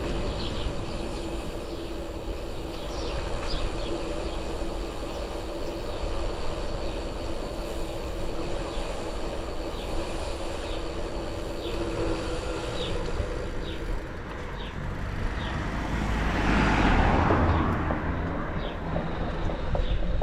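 Canyon Roadlite:ON 7 e-bike's Fazua Drive 60 motor rattling while riding: short, sharp rattles repeat every half second to a second over a faint steady motor hum and wind and tyre rumble. A broad rush of noise swells about sixteen seconds in.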